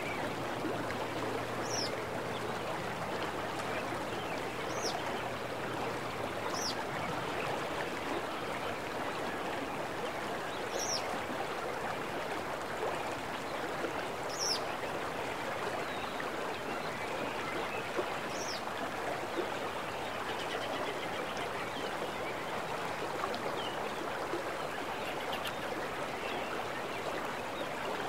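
A stream flowing steadily, with short high falling bird chirps every few seconds.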